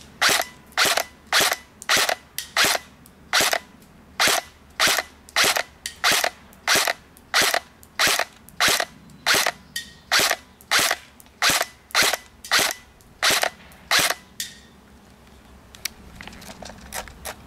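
KWA M4A1 airsoft rifle firing single shots on semi-auto with no silencer fitted: about twenty sharp cracks, roughly one every two-thirds of a second, stopping about fourteen seconds in.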